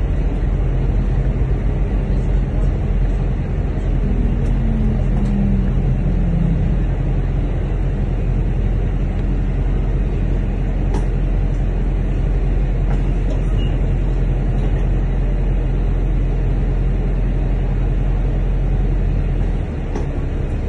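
London bus in motion, heard from inside the bus: a steady low engine drone with road noise, and a brief falling tone from the drivetrain about four seconds in.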